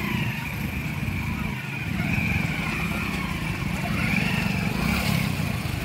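Several small commuter motorcycles with their engines running steadily while they are eased over rocks.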